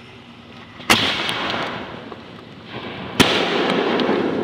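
Two loud reports from Sister brand aerial firework shells, about two seconds apart. Each is followed by a long, rumbling tail of echo and crackle.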